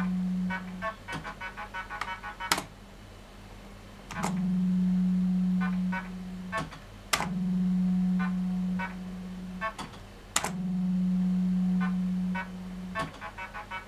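1981 Super 2p Eachway Shuffle fruit machine playing several games in a row: each game opens with a sharp clack and a loud steady low hum of about two seconds while the reels spin. The reels then stop with clicks and a quick run of short electronic beeps, and the cycle repeats.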